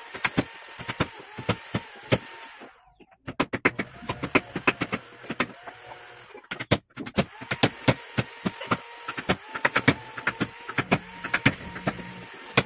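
A wood chisel being struck into timber by hand: quick, uneven knocks of several blows a second, with two short pauses.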